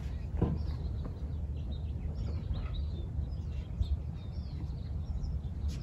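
Outdoor ambience: birds chirping faintly over a steady low rumble, with a soft knock about half a second in.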